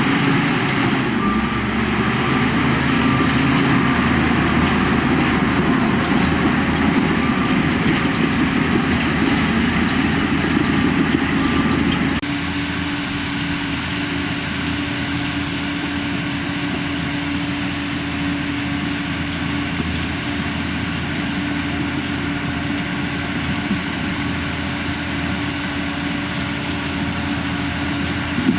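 Heavy diesel engine of a bulldozer running, its pitch wavering up and down under load. About twelve seconds in, the sound changes abruptly to a quieter, steadier drone.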